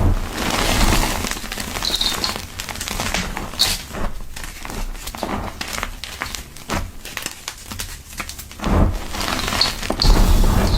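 Powdery gym chalk being crushed and squeezed, giving soft crackling and crunching made of many small crackles. It is densest at the start and again near the end, with sparser crackles in between.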